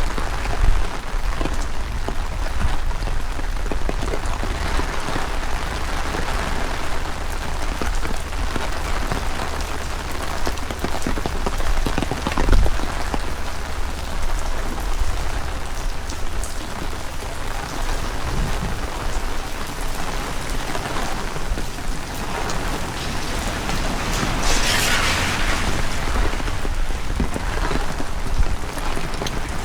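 Heavy rain falling steadily, with strong wind rumbling on the microphone. A louder rushing hiss swells and fades about 25 seconds in.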